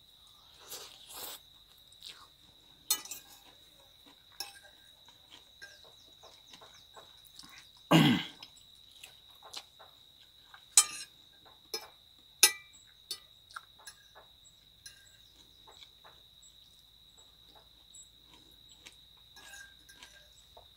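Metal fork clinking and scraping on a ceramic plate during eating, in scattered sharp clicks, over a steady high-pitched insect drone. About eight seconds in comes one louder, lower sound lasting about half a second.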